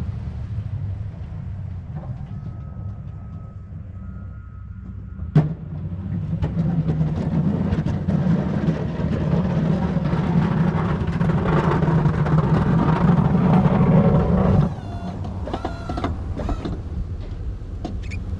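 Truck engine running while driving, a steady low drone. A sharp click comes about five seconds in, after which the engine gets louder and stays so until it drops off abruptly near fifteen seconds. Faint short squeaks follow.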